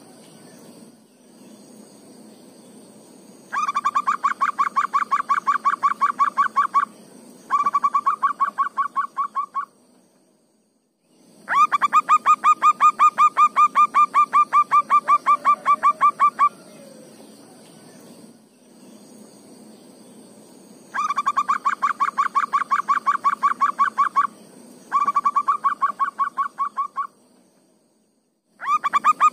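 Zebra dove (perkutut) singing: fast runs of short, clipped coo notes, five runs of two to five seconds each with pauses between, a long run often followed by a shorter one.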